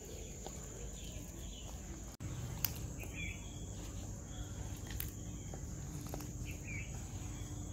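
Outdoor ambience: a steady high-pitched insect drone, with a few short bird chirps in the second half and a couple of faint clicks.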